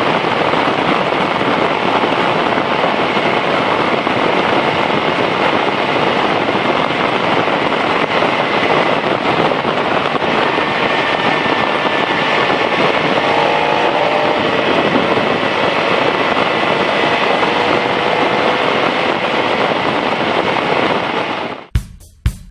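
Motorcycle on the move: a steady rush of wind noise over the microphone, with a faint engine tone rising and falling slightly beneath it. Near the end it cuts off abruptly and drum-kit music begins.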